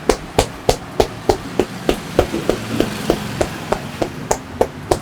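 Percussive massage strokes: a masseur's hands striking the body in a steady rhythm, sharp slaps at about three a second.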